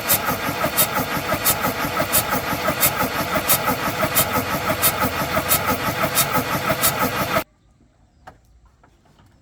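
Car engine turning over with a fast rhythmic beat and regular clicks, which stops abruptly near the end, leaving near quiet with one small knock.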